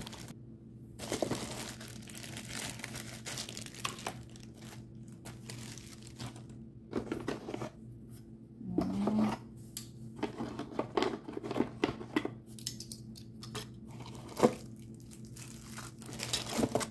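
Plastic packaging crinkling and rustling in irregular bursts as plastic-wrapped grooming vacuum attachments and a plastic bag are handled and unwrapped. A low steady hum runs underneath.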